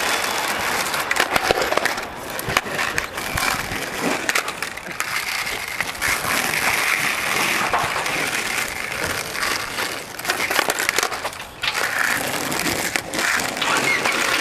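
Skateboard wheels rolling over rough asphalt, a continuous gritty noise, with scattered clacks and knocks of the boards.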